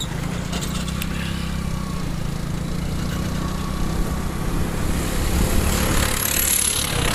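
Motorcycle engine running at a steady road speed, heard from the rider's seat, with wind rushing over the microphone growing louder in the last couple of seconds.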